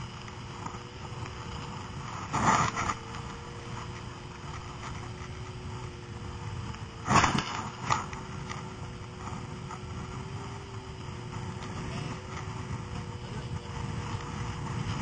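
Snowmobile engine running at a steady pitch while it tows a banana-boat sled over snow, under a low rough rumble. Two loud, brief bursts of noise stand out, about two and a half and seven seconds in.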